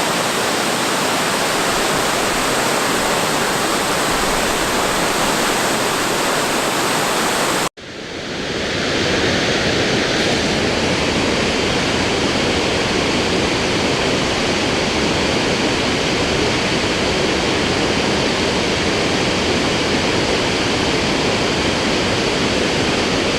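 A waterfall in heavy flow, a steady loud rushing of water. About a third of the way in the sound cuts out abruptly, then returns within a second or two slightly duller.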